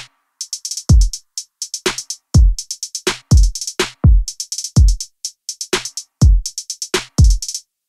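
Background music: a drum-machine beat of deep kick drums that drop in pitch under quick hi-hat ticks. It cuts off shortly before the end.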